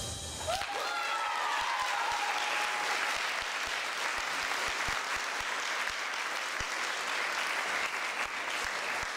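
Dance music breaks off about half a second in, and an audience applauds steadily, with a brief high cry or two from the crowd in the first couple of seconds.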